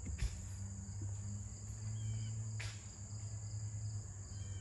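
Steady chorus of late-summer insects, an unbroken high-pitched trill, with a low rumble beneath, a few faint short chirps and two soft clicks, one just after the start and one about two and a half seconds in.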